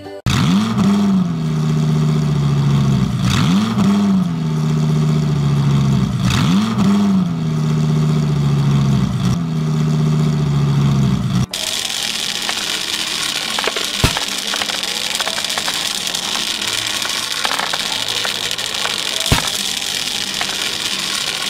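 Cartoon vehicle engine sound effect: an engine revving in four rising swells, about three seconds apart. About eleven seconds in it cuts off abruptly and gives way to a steady hiss broken by a few sharp clicks.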